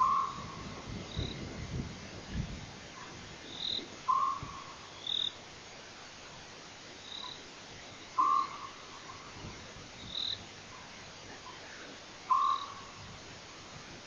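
Night-time animal calls: a short call repeated four times, about every four seconds, with fainter, higher short chirps in between.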